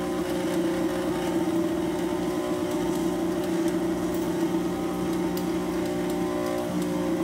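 KitchenAid electric mixer running steadily, beating eggs into creamed butter, sugar and shortening for a pound cake batter, with a slight shift in pitch near the end.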